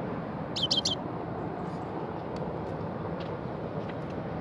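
Common bulbul giving three quick falling calls in a burst about half a second in, over a steady background noise.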